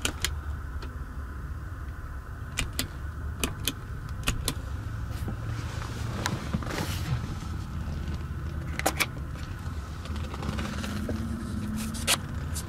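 Scattered sharp clicks and a brief rustle from interior fittings being handled in an SUV's rear cabin, over a steady low hum.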